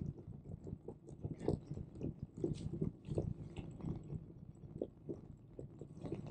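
Irregular clicks, knocks and rattles over a low rumble: a Brompton Electric folding bike jolting along an uneven surface.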